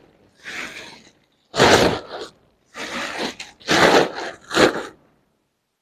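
A large Puma duffel bag being handled, its fabric rustling in five short bursts over the first five seconds, then still.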